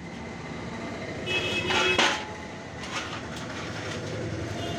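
Steady background rumble of passing traffic with a short clatter of metal knocks a little under two seconds in, as clutch springs and parts are handled during reassembly of a motorcycle clutch.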